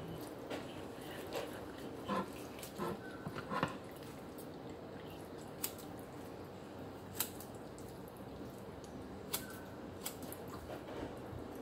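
Wet, soft squelching as skin is pulled off raw chicken breast. Later come about four sharp snips of kitchen scissors trimming the meat, spaced a second or two apart.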